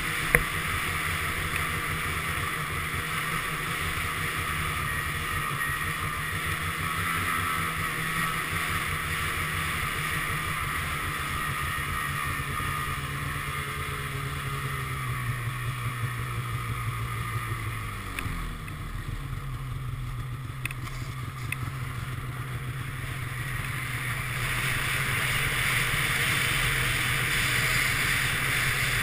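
Snowmobile engine running while riding, heard from the rider's seat. The engine note drops about eighteen seconds in, then rises and grows louder again near the end.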